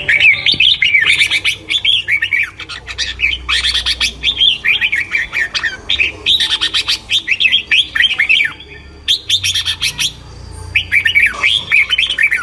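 Songbirds singing: rapid, high twittering and chirping phrases that come in bursts every second or two, with short pauses between them.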